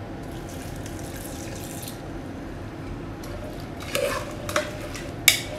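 Water poured from a glass into an aluminium pressure cooker, a steady pour over the first couple of seconds. Then a steel spoon stirs the vegetables and chickpeas, with a few short scrapes and clinks against the pot's side near the end.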